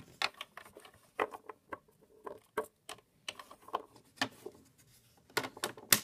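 Littlest Pet Shop plastic figurines tapped along a plastic playset floor to make walking steps: a run of light, irregular taps, a few a second, louder near the end.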